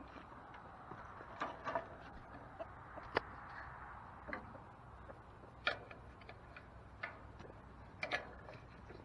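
Chickens clucking faintly, with a handful of scattered sharp clicks.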